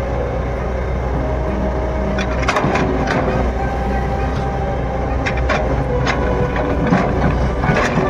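Kobelco SK210 excavator's diesel engine running steadily under digging load, with sharp clanks and scrapes as the bucket works into the soil, several of them from about two and a half seconds in.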